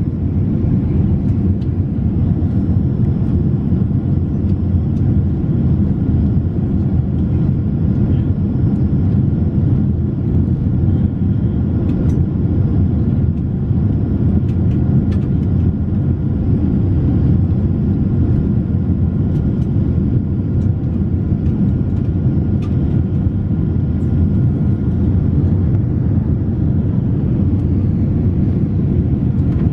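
Steady low rumble of a jet airliner's engines and rushing air, heard inside the passenger cabin, with a faint high steady whine above it.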